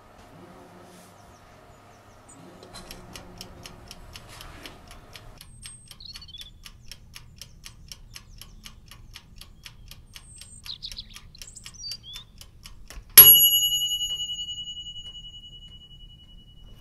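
Mechanical kitchen timer ticking steadily, about four ticks a second, then its bell rings once, loud, and fades over a few seconds as the set baking time runs out.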